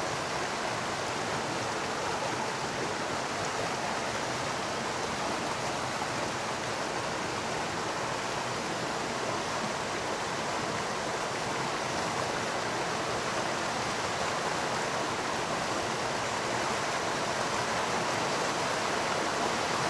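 Creek water rushing steadily over a small cascade, an even watery roar that grows a little louder near the end.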